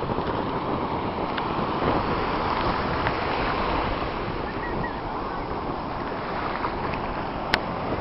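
Atlantic Ocean surf washing on the beach, with wind buffeting the microphone, heard as a steady rush. A single sharp click comes near the end.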